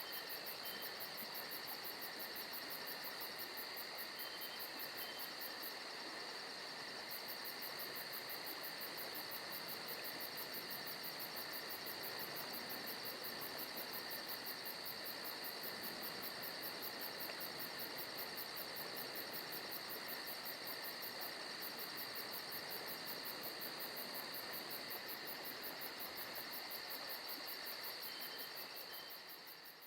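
Crickets chirring steadily, a fast even high-pitched pulsing, fading out at the very end.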